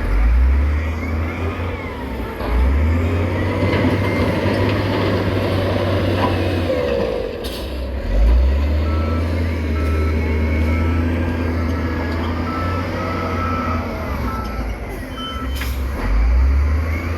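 Heavy diesel construction machinery working, its engine revving up and down several times, with a reversing alarm beeping steadily about one and a half times a second through the middle of the stretch.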